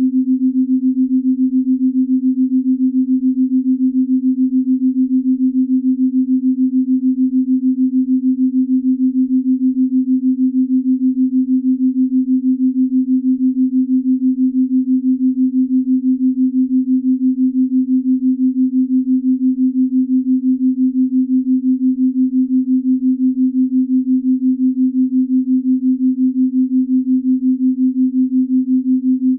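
Binaural-beat sleep tone: one steady, low, pure hum that pulses quickly and evenly in loudness.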